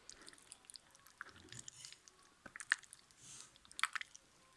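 Slime mixed with soothing gel being squeezed and poked by hand, giving scattered wet clicks and sticky pops, the strongest near the middle and shortly before the end.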